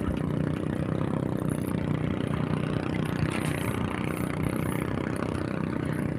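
A small engine idling steadily with an even hum.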